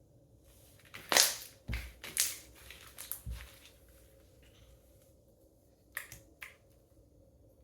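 Homemade slime squished and stretched in the hands, giving crackling pops as air pockets burst: a run of crackles from about a second in, then two sharp pops near the end.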